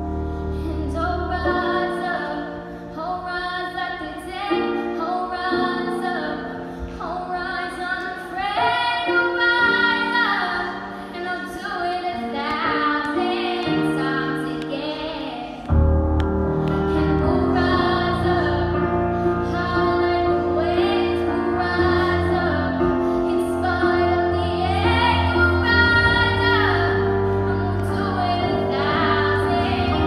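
A girl singing solo into a microphone over a musical accompaniment. About halfway through the accompaniment comes in louder and fuller, with a deep bass underneath the voice.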